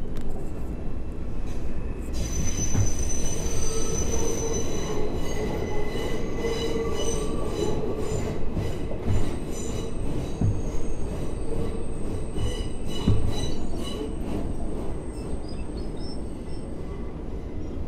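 R142 subway train running, heard from inside the car: steel wheels squealing against the rails in several high pitches over a steady low rumble, with a few clunks. The squeal starts about two seconds in and fades away near the end as the train pulls into the station.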